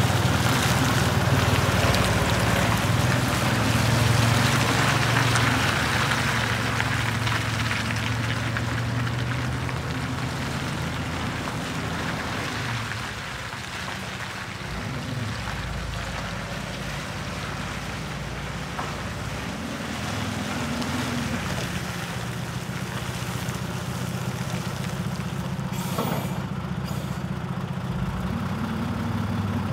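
Scania 94G 230 truck's nine-litre five-cylinder diesel engine running as the truck drives off, growing fainter as it moves away around the middle and louder again as it comes back. A single sharp click sounds near the end.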